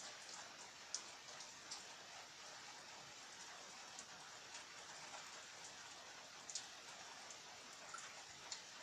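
Steady, faint rain hiss, with scattered single drops ticking sharply onto a hard surface now and then.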